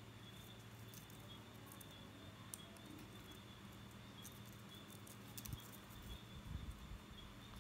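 Faint handling sounds: small ticks and rustles as coloured craft wire is wound around a miniature bench of thin wooden sticks, with a few soft bumps in the second half, over a steady low electrical hum.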